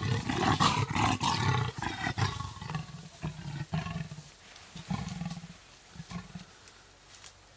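Leopards growling and snarling in a confrontation over a kill: a run of loud growls over the first two seconds or so, then shorter, quieter growls that die away.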